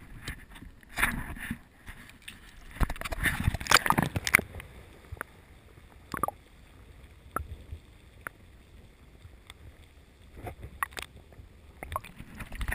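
Seawater splashing and sloshing as a camera is plunged through the surface, then a muffled underwater stretch with scattered sharp clicks, and another splash as it breaks back out near the end.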